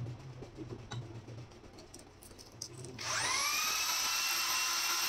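Quiet handling clicks, then about three seconds in a corded electric drill starts and spins up to a steady high whine, turning a new motorcycle valve guide held against 80-grit emery paper to sand it down before fitting.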